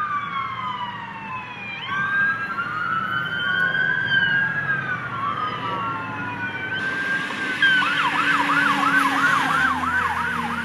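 Emergency vehicle sirens wailing, two overlapping in slow rising and falling sweeps. About eight seconds in, the sound changes to a fast yelp, about three or four sweeps a second.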